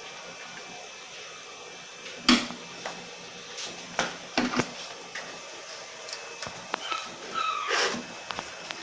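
Knocks and light scraping from handling and brushing dust out of an open metal desktop PC case, the loudest knock about two seconds in. A short faint whine is heard near the end.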